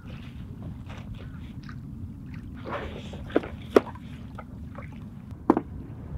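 Low steady wind rumble over lake water, with a few sharp knocks, about three and a half and five and a half seconds in, from a paddle being handled in an inflatable rubber dinghy.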